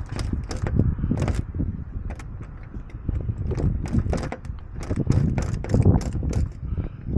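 Irregular metallic clicking and rattling of lock-picking tools working a car door lock, over a steady low rumble.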